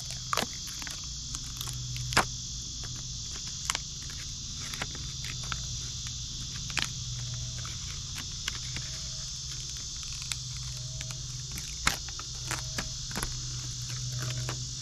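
Steady high insect chorus, crickets, over a low steady hum, with scattered light clicks and ticks from handling the emblem and peeling its tape backing.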